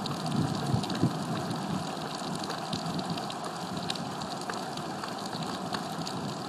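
Steady rain hiss with scattered ticks of drops. A low rumble fades out in the first second.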